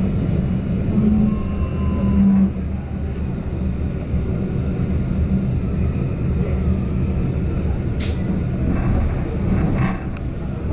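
Sheffield tram-train (Stadler Citylink, Class 399) running along the line, heard from inside the passenger saloon: a steady low rumble of wheels and running gear under a low hum that eases off after the first two seconds or so. There is a single sharp click about eight seconds in.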